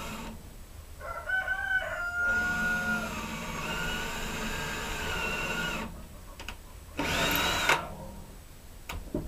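Ryobi cordless drill boring into a wooden fence post: the motor runs steadily for about three and a half seconds, then a second short burst near seven seconds. A rooster crows about a second in, just as the drilling starts.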